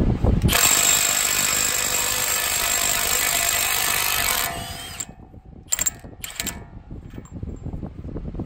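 Impact wrench running for about four seconds with a steady high whine, then stopping, followed by two short bursts of the tool.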